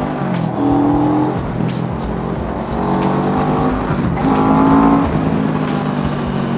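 Background music, a song with a sung melody over a steady beat, plays over the low, steady rumble of the motorcycle running at cruising speed.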